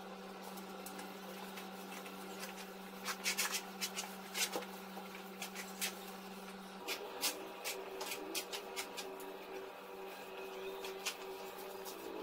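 String mop being worked over a floor, with scattered knocks and taps of the mop and handle, over a steady hum that shifts about seven seconds in.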